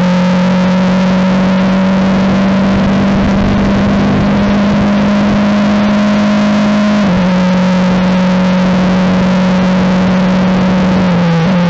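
Formula 4 race car's turbocharged four-cylinder engine running at full throttle, heard onboard over wind noise. Its note steps down in pitch with an upshift at the very start and another about seven seconds in, and wavers near the end.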